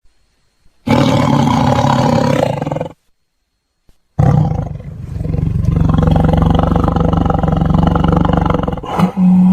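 Tiger roaring: one roar of about two seconds, then after a short silence a longer roar of about five seconds. A new, steadier call begins just before the end.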